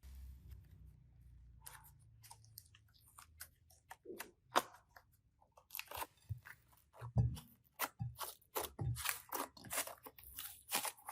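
Slime being squeezed and pressed by hand, giving a run of sharp crunching crackles that come thicker and faster in the second half.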